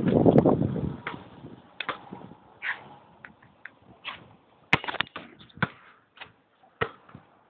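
A brief burst of noise, then scattered sharp knocks and taps on an outdoor basketball court: a basketball bouncing on asphalt and striking the backboard, with footsteps. The sharpest knock comes a little after the halfway point, just after a shot goes up.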